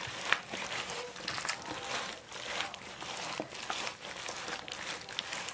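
Rubber-gloved hands working chili seasoning paste between the leaves of salted napa cabbage: irregular wet squishing and rustling with crisp little crackles from the leaves.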